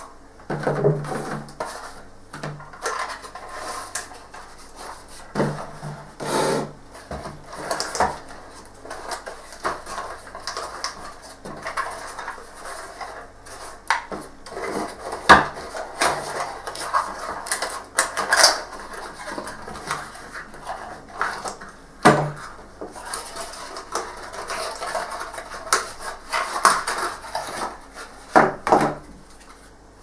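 Irregular knocks, clicks and rustling as computer parts and their packaging are handled by hand, with a few sharper knocks standing out.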